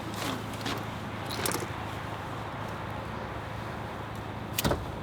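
Work on a car's stripped interior: a few light clicks and rustles, then one sharp snap or knock about four and a half seconds in, over a steady low hum.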